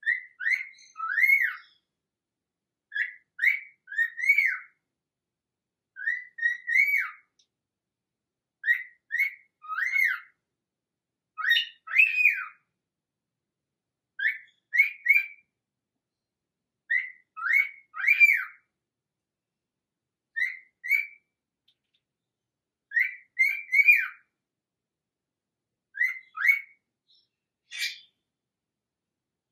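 A bird's whistled call of two or three quick rising-and-falling notes, repeated about every three seconds with silence between.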